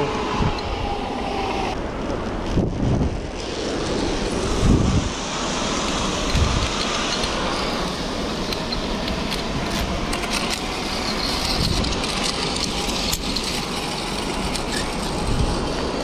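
Zipline trolley running along the steel cable with wind rushing over the microphone: a steady rushing noise with a few low buffets of wind.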